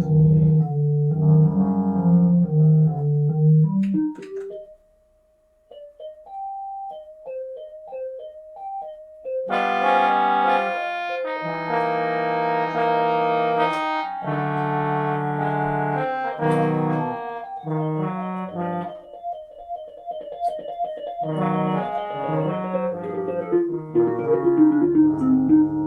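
Keyboard music, piano and organ-like chords: a short near-silent break about five seconds in, then a sparse melody of single notes, then fuller sustained chords.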